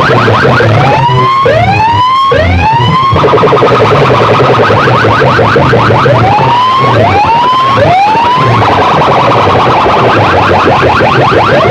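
Competition sound-system track of siren effects played very loud: fast warbling alarm-like tones over a pulsing bass, broken by groups of three rising whoop sweeps.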